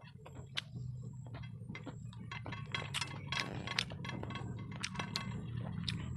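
Close-miked eating sounds: chewing and lip smacks heard as a dense run of sharp, irregular clicks, along with fingers mixing rice on a plate, over a steady low hum.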